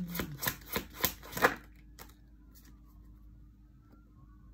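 A deck of oracle cards being shuffled by hand: a quick run of card flicks and slaps that stops about a second and a half in.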